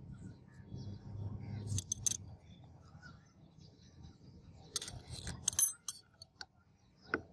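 Thin steel strips clinking and tapping against each other and the steel vise jaws as they are handled and set in place. It comes as a few sharp separate metallic clicks, the loudest cluster about five seconds in and a last click near the end.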